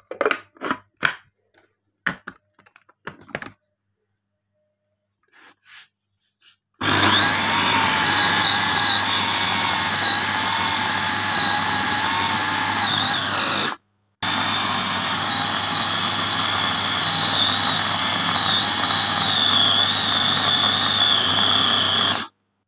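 Electric mini food chopper running, grinding a spiced minced-beef mixture: a steady motor whine in two runs of about seven and eight seconds, with a short stop between them. A few light clicks and knocks of handling come first.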